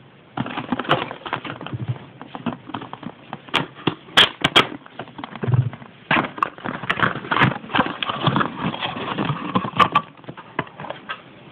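A cardboard Kinder Sorpresa egg box is handled and opened close to the microphone: crackling, rustling cardboard with sharp clicks. It starts about half a second in and dies down about ten seconds in.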